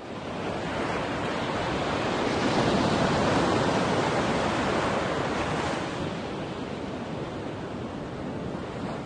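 Sea waves washing: a steady rushing noise that fades in, swells for a few seconds and then eases off.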